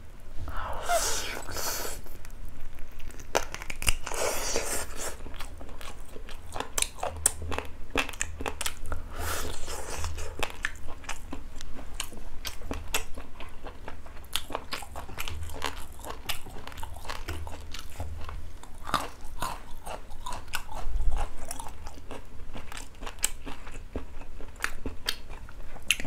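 Close-miked chewing of boiled duck and kimchi: wet mouth clicks, smacks and crunching, with many short sounds close together throughout.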